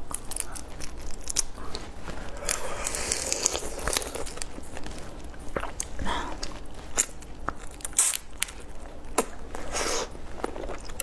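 Shells of large marinated prawns crackling and tearing as they are pulled apart by hand and bitten, with many sharp clicks and wet chewing.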